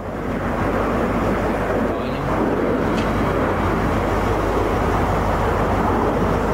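HST diesel power car running steadily: a constant low engine hum under a broad rumble.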